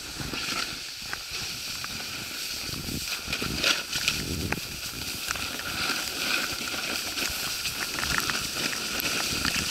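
Snowboard edges scraping and skidding over packed snow, with irregular short scrapes and knocks over a steady hiss.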